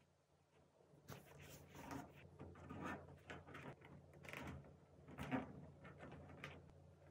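Faint plastic scrapes and clicks of zip ties being threaded through holes in a plastic bin lid and its wire mesh, with a sharper click about five seconds in.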